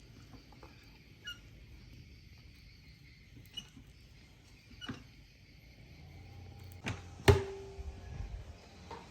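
A few scattered knocks and clicks of objects being handled, the loudest a sharp clink about seven seconds in that rings briefly before dying away.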